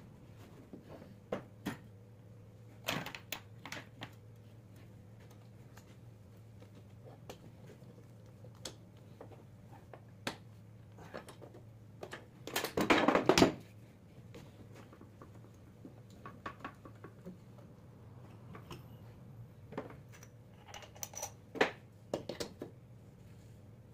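Metal clicks and knocks from hand tools and the aluminium alternator end housing being handled in a bench vise, with a dense rattling burst about halfway through. A faint steady hum runs underneath.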